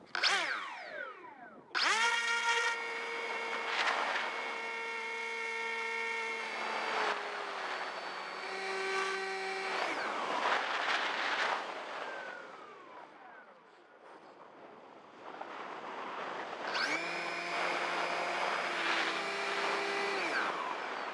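Multiplex EasyStar's electric motor and pusher propeller, heard from on board: a steady high whine that cuts in sharply, drops in pitch a couple of times with the throttle, then winds down and stops. There is a stretch of quieter wind rush while the plane glides unpowered, then the motor whine starts again and winds down near the end.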